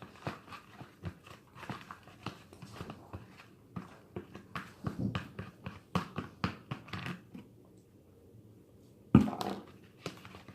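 Sticky slime with modeling clay in it being stirred and squished in bowls: irregular wet clicks and squelches. After a short pause, a single loud thump about nine seconds in.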